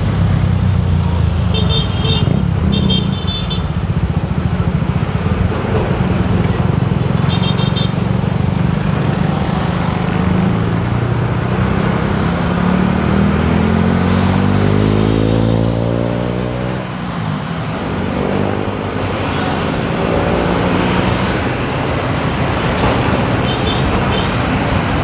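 Busy motor traffic with motorcycles and trucks, heard from a bicycle: engines running with a steady low drone. There are short high horn beeps twice around two to three seconds in, once near eight seconds and briefly near the end. An engine rises in pitch as a vehicle accelerates about twelve to sixteen seconds in.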